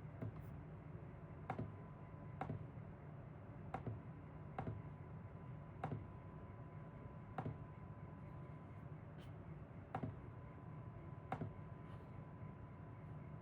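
Single sharp clicks, about eight of them, spaced one to two and a half seconds apart, over a steady low hum and a faint steady high tone.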